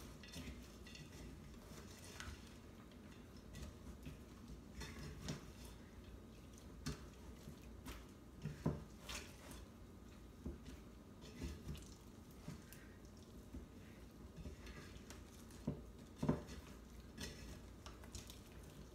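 Silicone spatula stirring thick, stiff chocolate fudge with nuts in a stainless steel saucepan. Scraping and irregular knocks against the pan, with the loudest knocks about halfway through and near the end.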